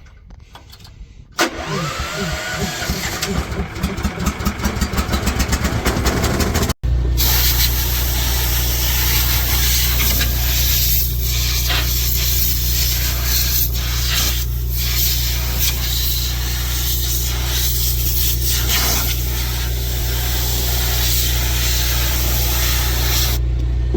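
Truck engine cranking with a quickening pulse and catching, then, after a brief cut, running loud and steady.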